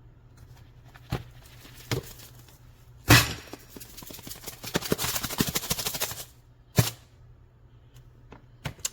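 Container of monk fruit sweetener being handled: a sharp knock about three seconds in, then about three seconds of dense rattling and scraping, another knock near seven seconds, and a few light clicks.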